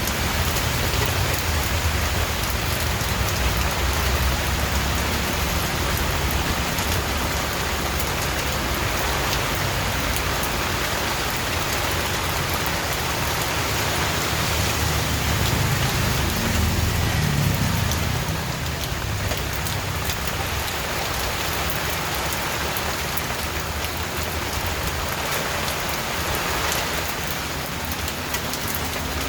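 Steady heavy rain falling and pattering on surfaces, with a low rumble underneath that swells about halfway through.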